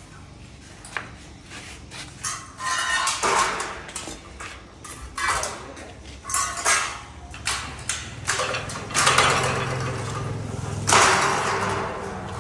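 Metal square tubing of a welded gate frame clanking and rattling in a series of irregular knocks and scrapes as it is handled and set down.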